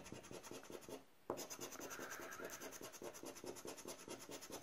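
Scratch-off coating being rubbed off a paper lottery scratch card with a flat scraper: quick, faint back-and-forth scraping strokes, with a brief pause about a second in.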